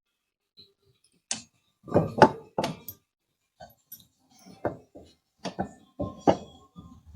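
Metal hand tools and bolts clinking and knocking in a string of separate sharp strikes while motorcycle frame and side-stand bolts are undone, busiest about two seconds in and again in the second half.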